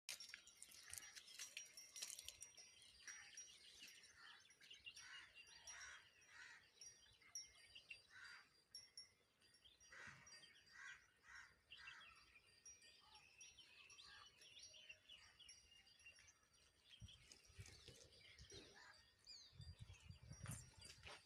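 Faint outdoor ambience of many small birds chirping and calling, over a thin steady high tone, with low rumbles near the end.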